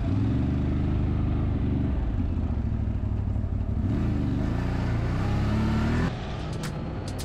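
ATV engine running and revving, its pitch rising and falling. It drops away abruptly about six seconds in, leaving a quieter stretch with a few sharp clicks near the end.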